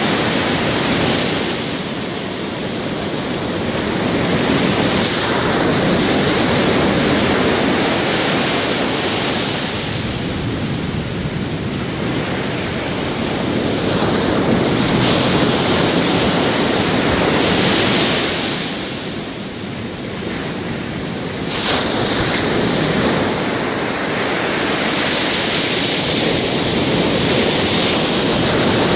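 Ocean surf: waves breaking on a beach and washing up the shore. A steady rushing that swells and eases, with several sharper hissing surges as new waves break.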